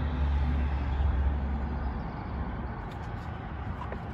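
Wind blowing on the microphone: a low rumble with a steady rush behind it, easing somewhat about two seconds in.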